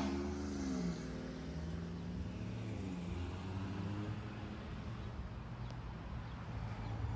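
An ambulance's heavy air horn cuts off, its tone sliding down in pitch over about a second as it dies away, with a fainter falling tone a couple of seconds later. Under it the vehicle's engine and road noise run on steadily.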